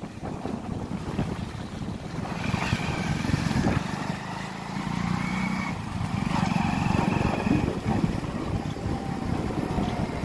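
A vehicle's engine running on the move, with wind noise over it.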